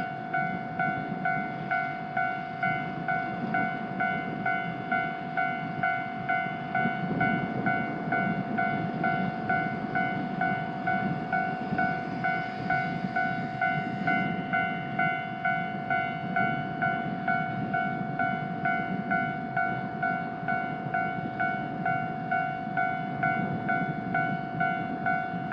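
Japanese railroad crossing warning bell ringing its steady 'kan-kan' clang, about one and a half strikes a second, each a ringing tone that fades before the next. A train rumbles past under it, loudest in the middle, with a hiss that stops about halfway through.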